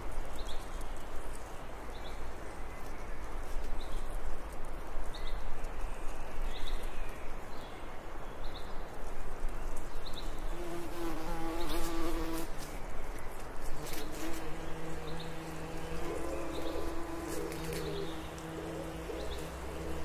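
Bees buzzing in a continuous drone, with a louder, steady-pitched buzz coming in about halfway through. A bird gives short high chirps every second or two, and a few sharp clicks sound about two-thirds of the way through.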